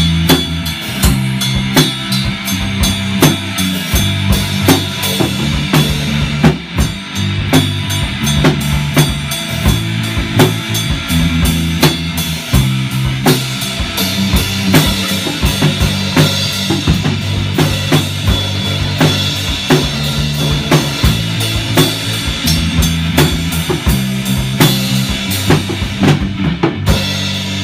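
A small rock band jamming live: a drum kit keeps a steady beat on bass drum and snare, an electric bass plays a repeating line of a few low notes, and an electric guitar plays along.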